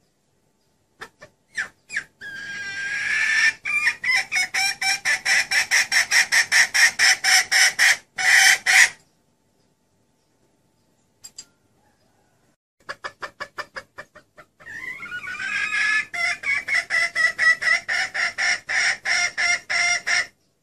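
Red junglefowl hen's clucking call in two long bouts. Each bout opens with a few separate clucks, then runs into a fast, steady series of about four clucks a second.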